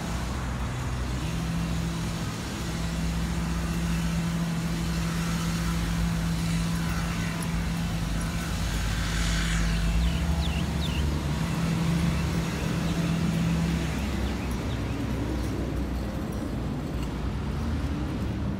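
Road traffic: motor vehicle engines running with a steady low hum that stops about 14 seconds in, and tyre and engine noise swelling and fading as a car passes about halfway through.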